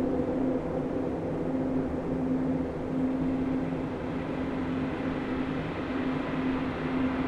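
Electronic ambient sleep soundscape: a low, steady droning tone over a soft rumbling noise wash, with the tone swelling and easing slightly.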